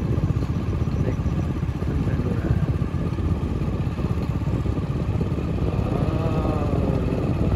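Small two-wheeler engine running steadily while being ridden, heard from on board as a low, fast, even rumble.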